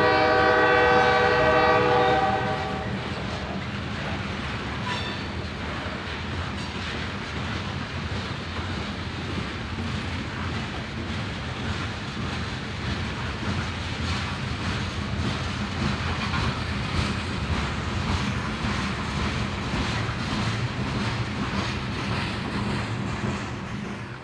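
Diesel freight locomotive's horn sounding a long chord that ends about three seconds in, then the steady rumble of the passing freight train with wheels clicking over rail joints.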